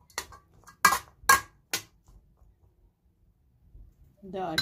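A metal spoon knocking against the rim of a metal pot: four sharp clanks in under two seconds, the middle two the loudest.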